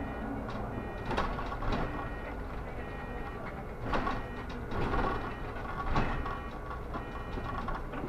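Solaris Urbino 18 articulated city bus riding, heard from inside: steady running noise broken by several sharp knocks and rattles.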